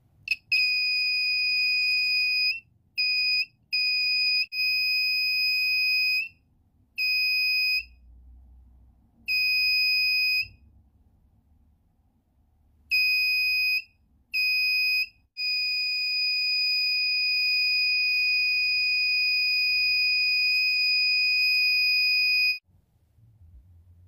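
Small electronic buzzer of a homemade 9 V battery-powered infrared proximity alarm sounding a steady high-pitched tone whenever the IR sensor is triggered by an object held in front of it. It comes as a run of beeps of uneven length, then one long tone of about seven seconds that cuts off suddenly.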